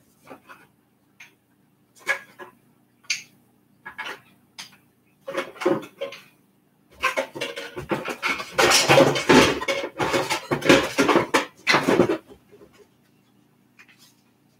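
Hard objects clattering and knocking as someone rummages off to the side. There are scattered single knocks at first, then several seconds of dense clatter, then a few light ticks.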